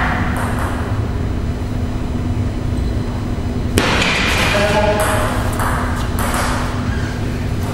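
Table tennis ball clicking off bats and table a few times in a short rally, with one sharp click a little under four seconds in. A brief voice sounds just after it, over a steady low rumble and hum of the hall.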